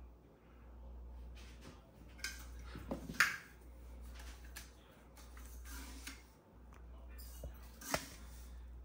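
Scattered light clicks and knocks, typical of kitchen utensils and containers being handled, over a low steady hum. The sharpest knocks come about three seconds in and again near the end.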